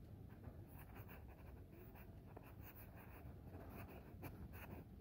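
Faint low rumble of a slow-moving vehicle heard from inside the cabin, with scattered light clicks and scratchy ticks throughout.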